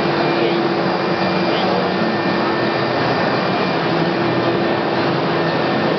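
Steady machine noise with a constant hum, mixed with faint babble of many voices, as in a busy exhibition hall.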